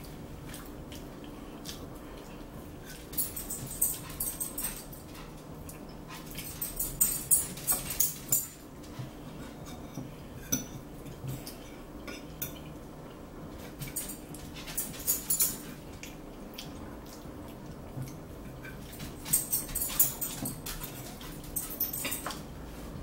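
Metal forks clinking and scraping against dinner plates, coming in several short clusters of rapid clicks.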